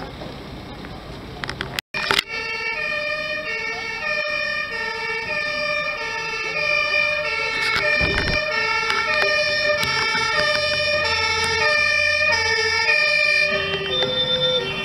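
German two-tone fire engine siren (Martinshorn) alternating between a high and a low note, each held about two-thirds of a second. It starts abruptly about two seconds in. More than one siren sounds at once, out of step with each other, with a new pitch joining near the end.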